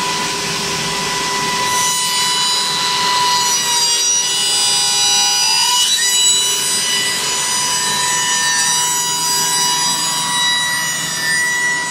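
Wood copy shaper's spindle cutter running at speed and cutting the edge of a wooden brush block: a steady high whine over the rasp of wood being shaped. A pitch glides upward about six seconds in.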